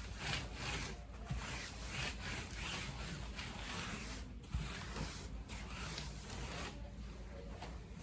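A cloth wiping down a work surface that has been sprayed with disinfectant, in a run of rubbing strokes at about two or three a second. There is one short knock about halfway through.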